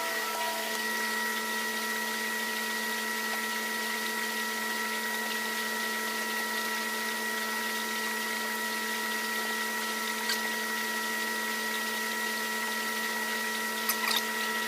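Steady running hum and watery hiss of aquarium pumps, filters and air bubblers in a room full of fish tanks. A few faint clicks come near the end.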